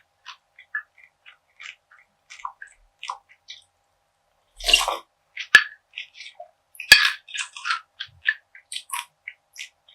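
Close-up chewing of crunchy perilla seed gangjeong (perilla seed brittle): a run of small crisp crackles, with louder crunching bites about five seconds in and again around seven seconds, then dense crackling chewing.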